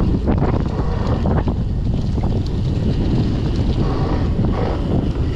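Wind buffeting the microphone of a bike-mounted camera, over the rumble of a drop-bar gravel bike's tyres rolling fast on a leaf-covered dirt trail, with short sharp clicks and rattles as the bike hits bumps.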